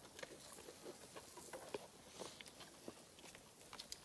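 Faint, scattered crinkling and rustling of plastic food bags being handled and opened by hand.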